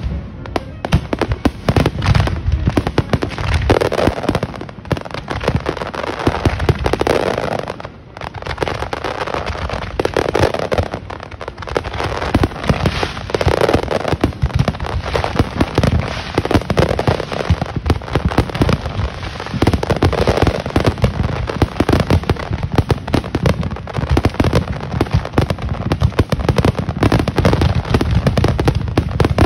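Aerial fireworks in a dense, continuous barrage: shell bursts and crackling come one on top of another, with a brief lull about eight seconds in.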